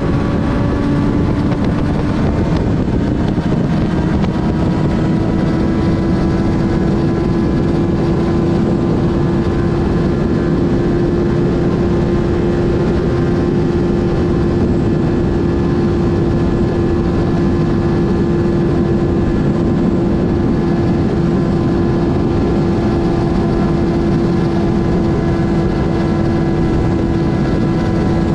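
2007 Suzuki GSX-R 600's inline-four engine running at steady cruising revs on the highway, its pitch rising slightly over the first few seconds and then holding level. A heavy rush of wind and road noise runs underneath it.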